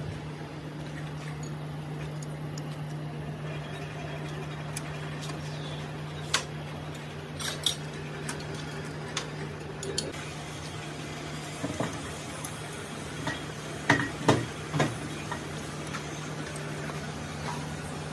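Scattered metallic clinks and taps of steel valve-train parts being handled on a six-cylinder diesel cylinder head, with a cluster of louder clinks about three-quarters of the way through, over a steady low hum.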